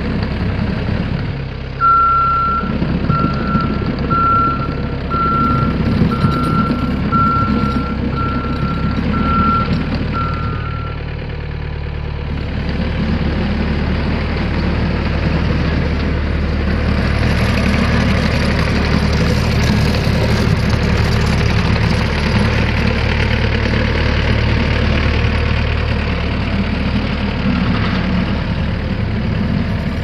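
Yanmar T175-1 tracked skid steer's four-cylinder diesel engine running, with its backup alarm giving about ten evenly spaced beeps, about one a second, while the machine reverses. After the beeps stop the engine runs on, louder from about halfway through.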